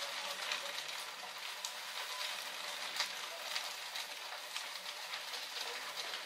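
A large fire crackling and hissing: a steady hiss with scattered sharp pops and snaps through it.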